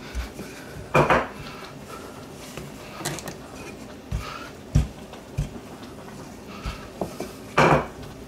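Rolling pin rolling over dough and knocking on a countertop: scattered knocks and thumps, the loudest about a second in and near the end.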